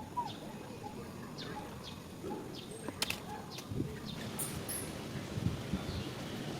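Short, high animal chirps repeating every second or so, with a few sharp clicks about three seconds in, over a steady low outdoor rumble.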